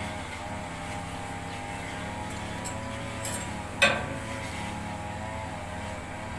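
An engine running steadily with a low, even hum, and a single sharp metallic clink about four seconds in.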